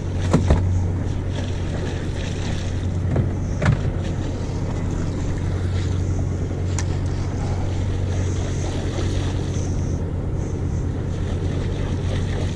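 Boat engine running at a steady idle, a constant low hum under a wash of water and wind noise. A few short knocks or clicks are heard, twice near the start and once about midway.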